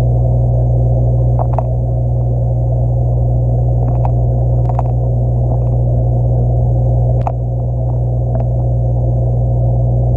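Steady low electrical hum of aquarium equipment picked up through the water of the tank, with a few short, sharp clicks scattered through it.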